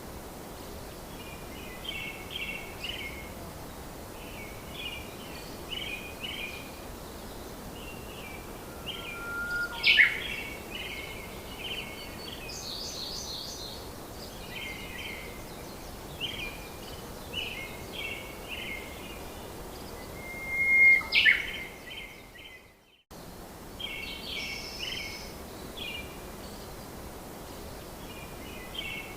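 Birds chirping in short repeated phrases over a steady background hiss. About ten and twenty-one seconds in comes a louder call with a short rising whistle. The sound cuts out for a moment about twenty-three seconds in.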